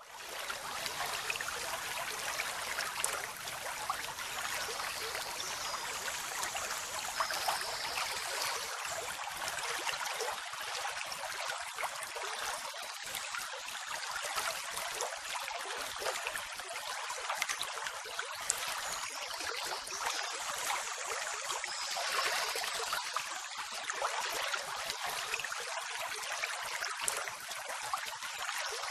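Steady rushing hiss like running water, even and unbroken, with almost no low rumble.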